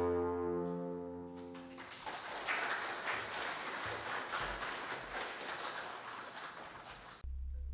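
Background music of held, sustained notes fades out. Then a steady rush of water noise, like a waterfall, runs for about five seconds before music with a low drone cuts in suddenly near the end.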